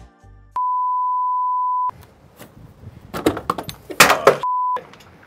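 A steady, single-pitch censor bleep held for about a second and a half, then a run of irregular knocks and clatter, then a second, brief bleep near the end.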